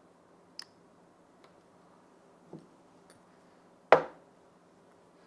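A few light clicks and taps from a smartphone being handled, then one sharp, loud click or knock about four seconds in, over a faint steady hum.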